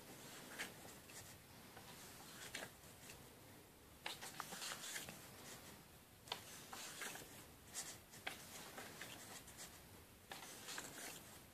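Pages of a hardcover comic book being turned by hand: faint rustling and swishing paper, with short crisp flicks several times as pages go over.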